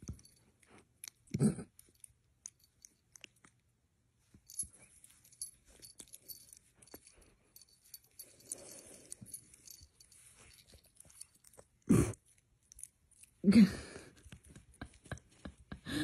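A puppy chewing and nibbling close to the microphone: soft wet mouth clicks and snuffling, with a couple of short louder grunts and a single knock about twelve seconds in.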